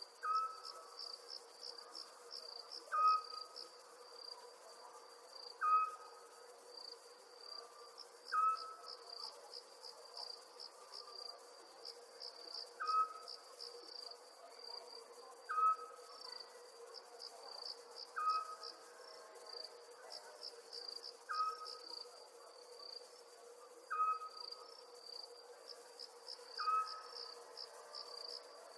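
Night chorus of crickets chirping in quick, pulsing trills. A short, louder call from another animal repeats about every two and a half to three seconds over it, with a faint steady hum underneath.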